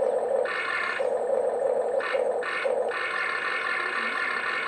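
Huina 1592 RC excavator's small electric motors and gearboxes whining as the arm and bucket are worked, switching back and forth between a lower and a higher whine several times as different functions run.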